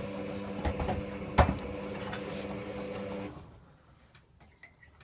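Steady electrical hum of a running appliance that stops a little over three seconds in, with one sharp knock about a second and a half in.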